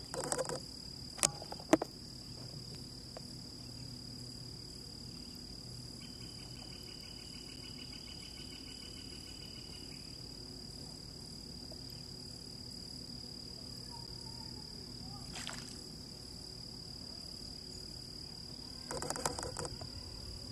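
Insects droning steadily at one high pitch. A rapid pulsing trill comes in from about six to ten seconds in, and two sharp clicks sound about a second in.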